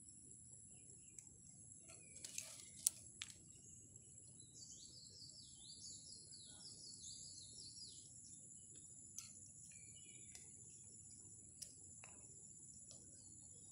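Steady high drone of insects, with a bird singing a run of short falling notes a few seconds in. A few sharp clicks come about two to three seconds in, one of them the loudest sound here.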